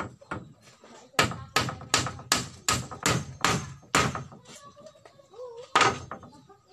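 A quick run of about eight sharp knocks, two to three a second, starting about a second in, then a single louder knock near the end.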